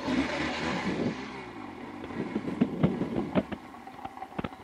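Honda ST1300 Pan European motorcycle moving off slowly with its V4 engine running low. From about halfway in there is a scatter of short, light knocks and ticks.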